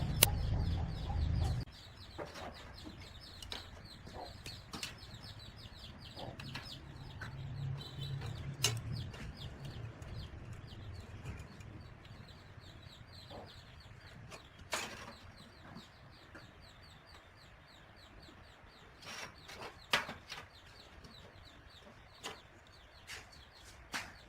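Faint bird calls with scattered light clicks and knocks. A loud low hum cuts off suddenly about a second and a half in.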